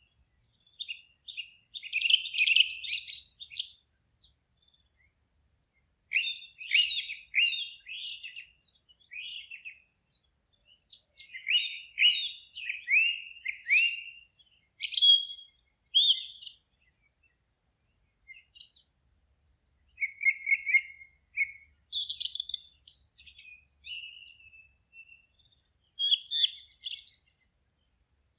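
Songbirds singing in a forest: high chirps and quick runs of short falling notes, in phrases of a few seconds separated by brief pauses.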